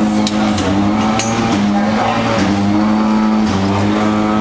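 Espresso machine running with a steady, pitched buzz as coffee is drawn into a plastic cup, with a few sharp clicks of cups and machine parts in the first second or so.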